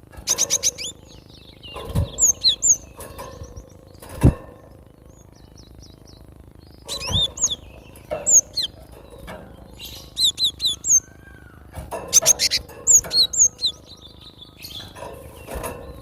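Cinereous tit calling: quick buzzy rattles at the start and again about twelve seconds in, between groups of short, high, sliding whistled notes. A few dull thumps come through, the clearest about four seconds in.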